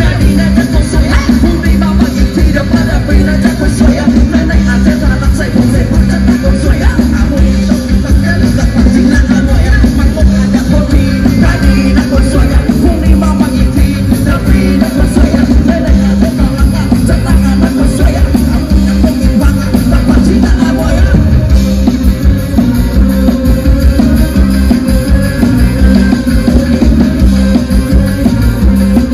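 Loud live pop-rock band music with a heavy bass and a steady beat, played through a concert sound system.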